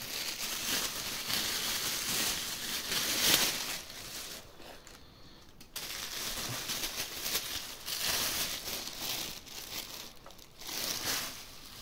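Thin clear plastic bag crinkling and rustling as a pair of sneakers is pulled out of it. It comes in bursts, with a quieter pause about four to six seconds in.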